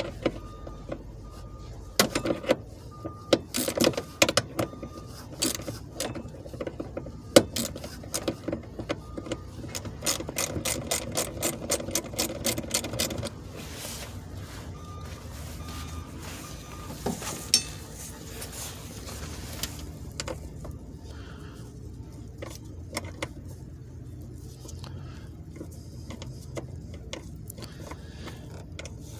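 Hand ratchet clicking while 10 mm bolts on the wiper motor assembly are loosened. Irregular spells of clicks mixed with knocks of the tool against metal lead into a steady run of fast clicks from about ten to thirteen seconds in. After that come only scattered faint clicks and one sharper knock.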